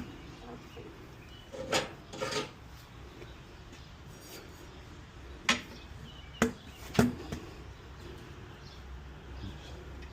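Hand tools and metal parts being handled: a few scattered clinks and knocks, a pair about two seconds in and three more close together around the middle, with quiet rubbing and shuffling between them.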